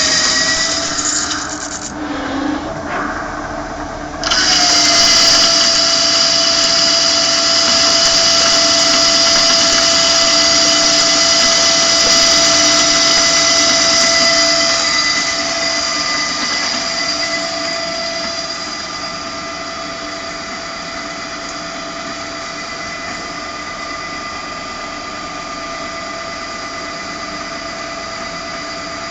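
Okuma Multus lathe heavy-turning a 200 mm workpiece at 5 mm depth of cut, giving a steady, high-pitched whine of several tones. It dips about two seconds in, comes back loud a couple of seconds later, and fades gradually to a quieter steady level from about halfway through.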